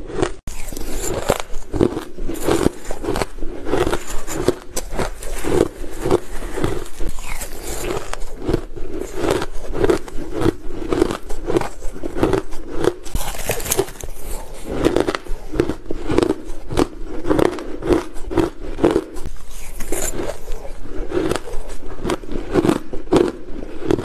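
Fluffy shaved ice being bitten and chewed: a steady run of crisp crunches, about two a second.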